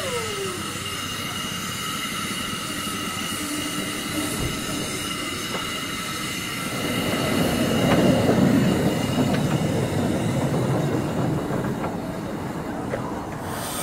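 Small narrow-gauge steam locomotive moving slowly along the track, its wheels squealing in several steady high-pitched tones. A louder rumble builds about seven seconds in and eases off by about ten seconds.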